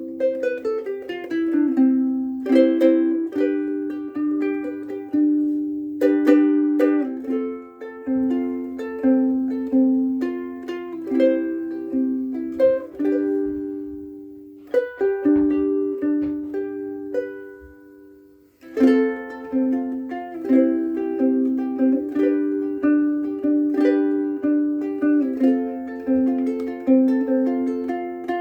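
Kala Pan-Pacific koa soprano ukulele played solo, noodling: strummed chords and picked notes that ring and decay, with a brief lull a little past halfway before the playing picks up again.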